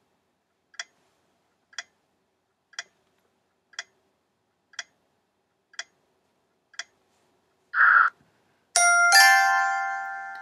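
Quiz countdown timer sound effect: a clock ticking once a second, seven ticks, then a short buzz about eight seconds in and a bell-like chime that rings and fades as time runs out.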